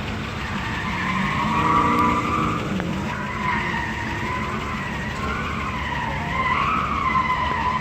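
Car tires squealing with a wavering, shifting pitch over a car engine's low rumble.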